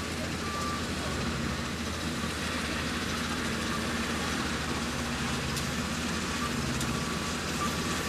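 Yanmar AW70V combine harvester's diesel engine running at a steady speed, with a few short high beeps, about a second in and twice near the end.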